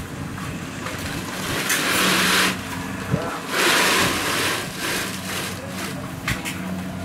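Kubota DC-70 combine harvester's diesel engine running with a steady hum. Two loud rushing bursts of noise come over it, about two and four seconds in.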